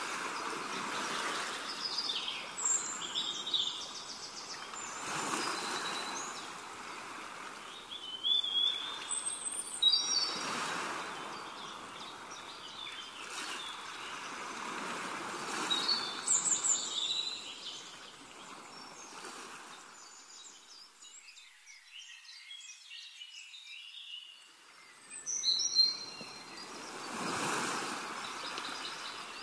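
Birds chirping and twittering over a wash of water that swells and fades every few seconds, easing off for a few seconds about two-thirds of the way through.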